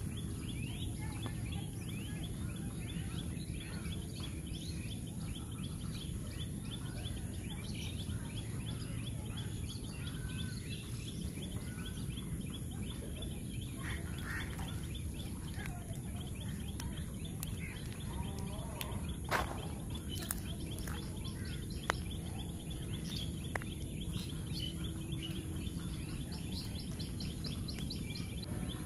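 Outdoor ambience of birds chirping and calling in the distance over a steady low rumble of wind. A few sharp taps in the second half, from snack pieces being dropped onto the ledge.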